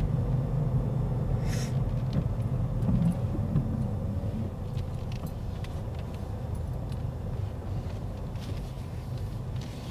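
Ford Fiesta heard from inside the cabin, its engine and tyres giving a steady low rumble as it creeps across a car park. The rumble drops about four and a half seconds in as the car slows. There is a brief hiss early on and scattered light clicks and rattles throughout.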